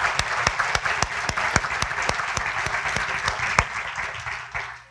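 Audience applauding: many hands clapping together, thinning out and dying away near the end.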